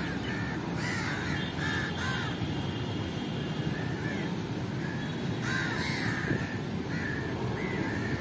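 A flock of house crows cawing: short, harsh caws from several birds, about ten in all, coming irregularly over a steady background noise.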